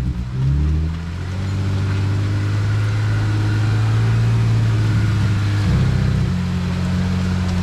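Jeep engine running at low revs while crawling off-road, with a brief rise in revs about half a second in.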